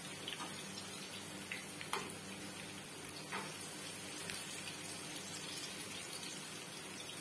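Peppers and tomato sizzling in oil in a frying pan, a steady hiss as the peppers soften. A few sharp scrapes and taps of a spatula against the pan come in the first few seconds as the vegetables are stirred.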